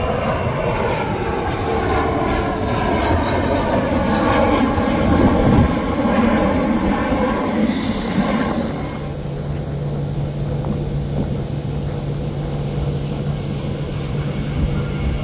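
Twin-engine business jet climbing away after takeoff, its engine whine falling in pitch as it recedes. About nine seconds in the sound changes abruptly to a steadier, lower hum from a jet out on the runway.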